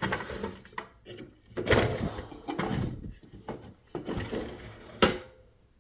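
Handling of a lock and its disassembly tools on a work surface: irregular scraping and rattling, with a sharp click about five seconds in.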